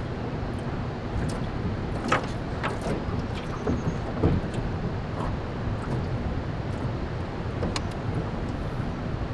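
Steady wind noise buffeting the microphone over open water, broken by a few light knocks.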